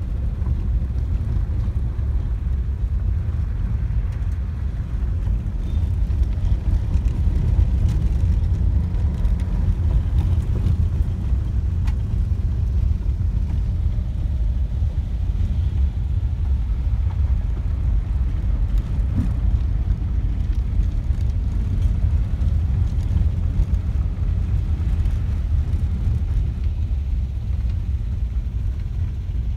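Steady low rumble of a vehicle on the move, engine and road noise heard from inside the vehicle.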